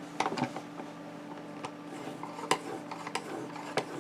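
Knife being stropped on the guided stropping attachment of a Worksharp Precision Adjust sharpener: quiet rubbing strokes with irregular light clicks and taps from the guide and clamp.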